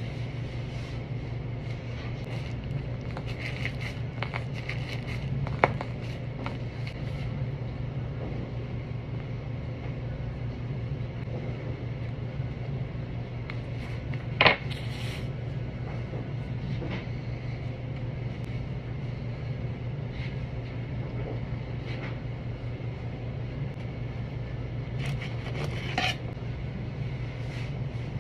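Steady low hum of kitchen machinery, with faint scrapes and a few clinks of a knife working on a layered chocolate cake on a metal cake board; the loudest is a sharp knock about halfway through.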